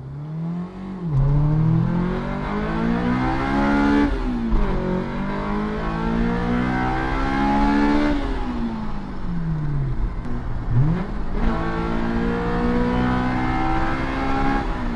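Honda S2000 four-cylinder engine accelerating hard from a launch. The revs climb through the gears, dropping sharply at each of two upshifts, about 4 and 8 seconds in. They then fall off the throttle and jump back up with a quick downshift near 11 seconds, and the engine pulls hard again.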